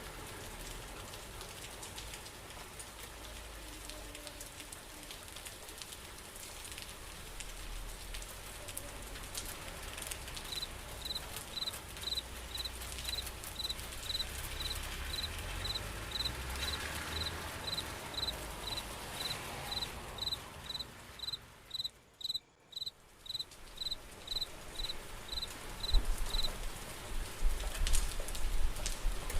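Steady rain falling, with a cricket chirping in a high, even pulse about twice a second from about a third of the way in until near the end. The rain briefly drops away for a moment, then comes back heavier near the end.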